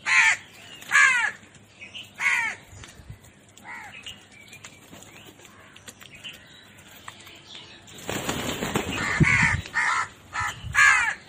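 Short bird calls, repeated: a few in the first four seconds and several more near the end. About eight seconds in there is a couple of seconds of rough, rustling noise.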